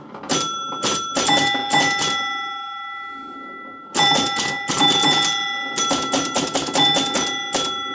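Gottlieb 1969 Airport electromechanical pinball machine scoring: its score bells ring again and again over the clatter of relays and score units. It comes in two rapid runs, a short one at the start and a longer one from about four seconds in.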